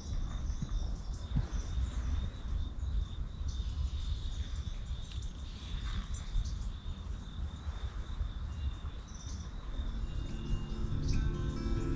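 Outdoor ambience: an insect trilling steadily at one high pitch, with a low rumble and a few bird chirps. Acoustic guitar music comes in near the end.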